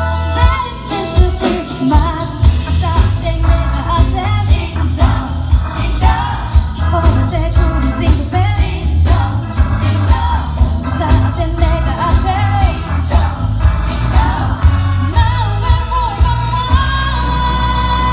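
Christmas pop song with jingling sleigh bells, a sung melody and a steady beat over heavy bass.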